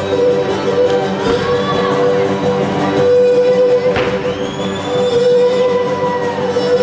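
Live Cretan folk music: laouta (long-necked lutes) strumming an even rhythm under a bowed fiddle-like melody. A few high gliding calls rise over the music from about three seconds in, and a single sharp thump sounds about four seconds in.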